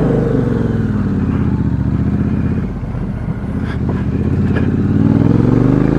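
A 2017 Triumph Bonneville T120's parallel-twin engine runs through a Customer aftermarket exhaust with a straight-cut black tip, picked up by a microphone inside the rider's helmet. The exhaust note drops away over the first couple of seconds and stays low, then climbs again as the engine revs up near the end.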